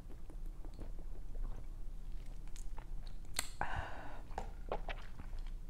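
Close-miked mouth sounds of someone drinking soda from a plastic bottle and swallowing: many small wet clicks. About three and a half seconds in there is one louder, breathy noise lasting about half a second.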